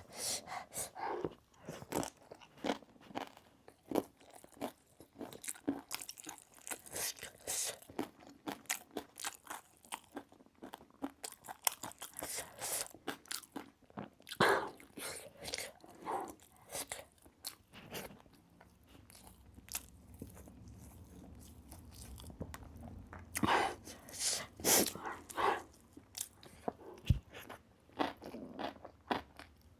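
Close-miked crunching and chewing of gilo chatpate, a spicy puffed-rice snack, in many short, irregular crunchy bites, with a few louder clusters later on.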